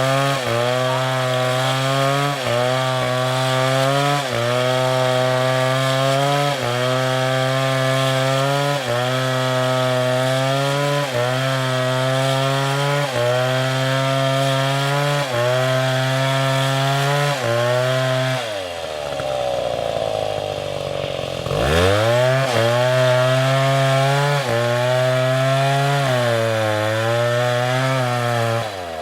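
STIHL chainsaw running at high revs while cutting wood, its pitch sagging briefly about every two seconds. About two-thirds of the way in the engine drops toward idle, then revs back up and carries on cutting.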